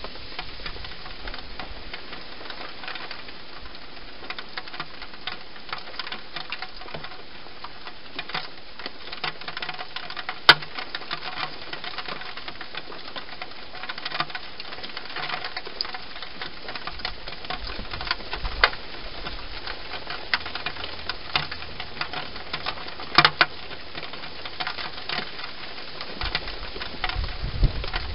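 A hedgehog eating dry food inside a plastic feeding box: irregular crunching and smacking clicks, a few sharper than the rest, over a steady hiss.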